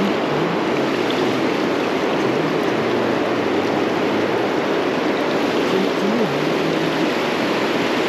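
Fast river water rushing steadily over boulders and through riffles.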